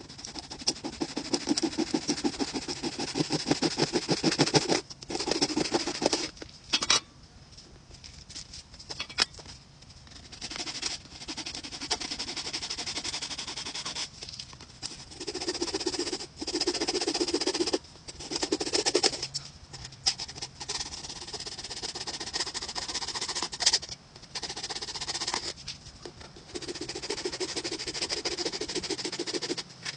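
A saw cutting through the hard, dried shell of a gourd: a rasping of the teeth in several bouts of sawing, broken by short pauses.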